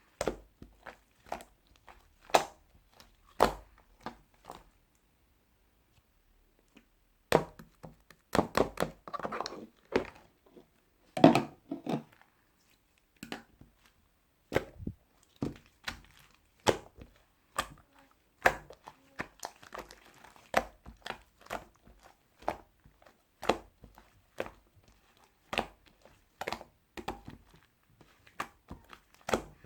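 Irregular close-up clicks, taps and knocks, with a pause of about three seconds after the first few and a denser run of knocks a little later.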